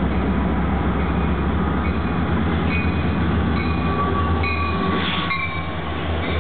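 Union Pacific diesel freight locomotives passing close by, leading a double-stack container train: a steady deep engine rumble with the rush of wheels on the rails. A few short high thin tones sound midway through.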